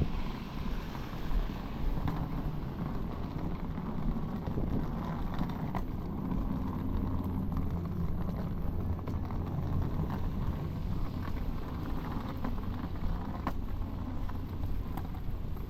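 City traffic rumbling, with wind noise on the microphone and a steady low engine hum from about six seconds in.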